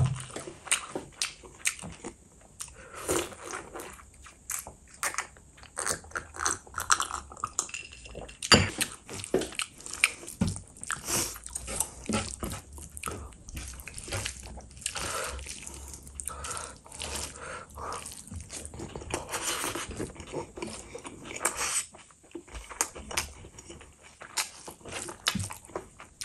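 Close-miked eating sounds: wet chewing and lip smacking of rice and mutton, with the squish of fingers working rice into gravy. Irregular clicks and smacks come one after another all the way through.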